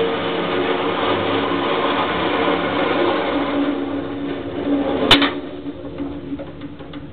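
Motorised target carrier on an indoor range lane running as it pulls a paper target up to the firing point: a steady motor whine and rattle that stops with a single sharp clack about five seconds in, followed by a few light ticks.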